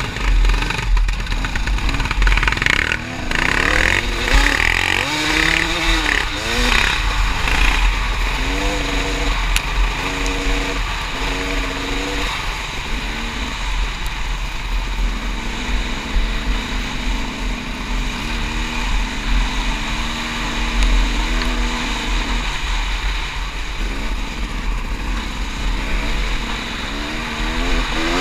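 Sport ATV engine under hard throttle, its pitch climbing and then dropping at each gear shift, with wind buffeting the microphone throughout. In the first seven seconds other quads' engines run close by.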